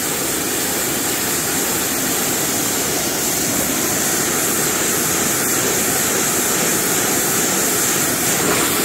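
EGO 56-volt cordless pressure washer running on its turbo setting, its high-pressure water jet from a 15-degree nozzle spraying onto concrete and a painted panel: a steady, even hiss of spray.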